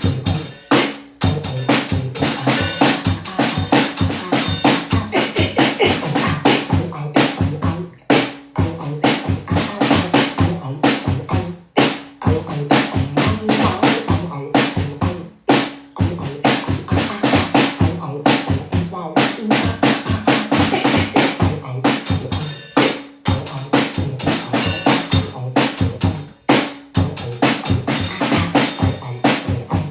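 Beatboxing: rapid vocal percussion imitating kick drum, snare and rimshot hits in a dense, fast beat, broken by short pauses every few seconds.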